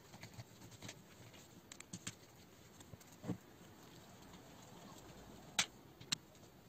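Faint scattered clicks and taps of a screwdriver working a screw into an RC buggy's metal chassis plate, with the plastic suspension parts knocking as the chassis is handled; a duller knock a little past three seconds in and two sharp clicks near the end.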